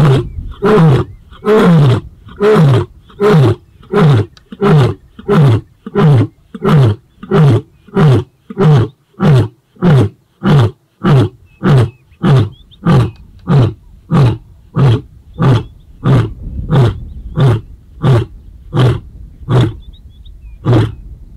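White male lion roaring: the long grunting run of a roaring bout, about thirty short, loud calls, each falling in pitch, spaced a little under a second apart and slowing slightly toward the end. The lion is roaring in reply to a rival male coalition's roars, a territorial display.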